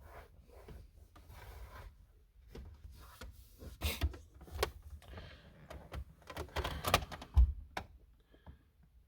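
Plastic interior trim around a car's glove box being handled: scattered clicks, knocks and rubbing, with a low dull thump late on.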